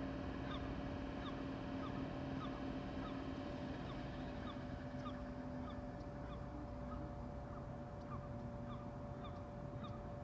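Street ambience: a steady machine hum with two held tones, the lower one fading out about two-thirds of the way through, under small birds chirping in short, repeated notes.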